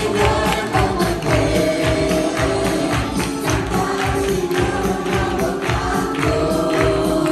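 Live gospel praise music: many voices singing together over a band with a steady beat, a tambourine prominent on the rhythm.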